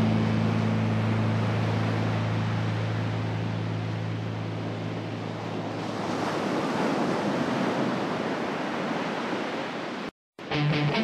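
The last distorted electric-guitar chord of a hardcore rock song rings out and fades under a rushing, surf-like wash of noise that swells and then cuts off abruptly about ten seconds in. After a brief gap of silence the next song begins with picked guitar notes.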